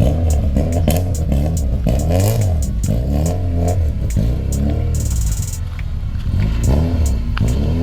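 Car engine revving up and down repeatedly, mixed with background music that has a steady beat.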